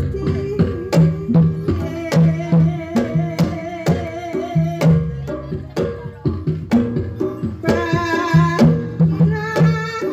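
Live jaranan (kuda lumping) gamelan music: kendang hand drums play steady, sharp strokes over sustained gong-chime tones. A wavering high melody line grows louder near the end.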